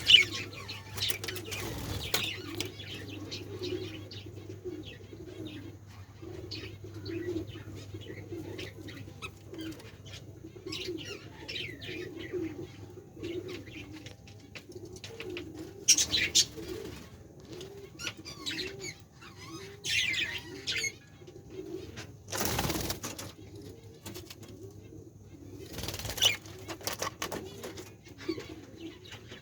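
Caged budgerigars chirping and fluttering their wings, over a low, wavering murmur that runs throughout. Two loud bursts of wing flapping come about three quarters of the way through.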